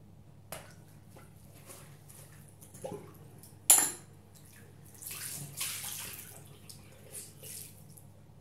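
Soap-lathered bath sponges squeezed and pressed in a sink of water: wet squelches and splashes. One sharp splash about three and a half seconds in is the loudest sound, followed a second later by a run of sloshing swishes.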